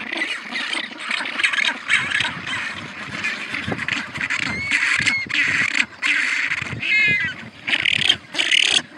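Penguins calling: many harsh, overlapping calls that break into separate bursts with short pauses in the second half, with a clear pitched call about five seconds in and a quavering call about seven seconds in.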